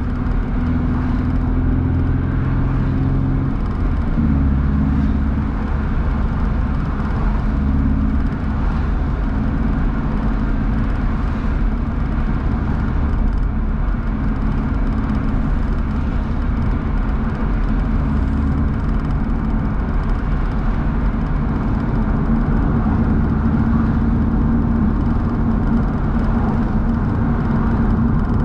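BMW roadster driving along, its engine running under steady load over road and wind noise. The engine note shifts pitch a few times as speed changes.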